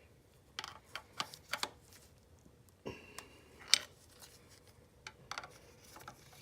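Big screwdriver prying a snug thermostat out of an aluminium thermostat housing: a run of irregular metal clicks and scrapes, with one sharp click just past halfway.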